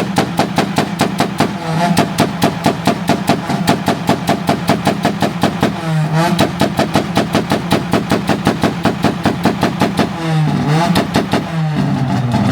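Car engines held on two-step launch-control rev limiters, letting out rapid, evenly spaced exhaust pops several times a second over the engine note. The popping breaks off briefly about six seconds in, and again about ten seconds in, where the revs drop and climb back before it resumes.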